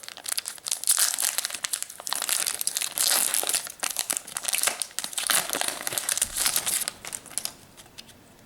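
Foil wrapper of a Pokémon TCG Fates Collide booster pack crinkling as it is torn open by hand, in quick irregular crackles that die away near the end.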